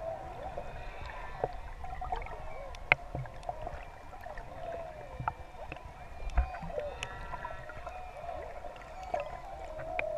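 Humpback whale song heard underwater: a continuous string of pitched calls that swoop up and down, some with higher overtones, the males' breeding-season song. Scattered sharp clicks and a low rumble of moving water run underneath.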